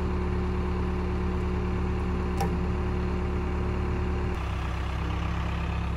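Tractor engine running steadily at low revs, its note dropping slightly about four seconds in.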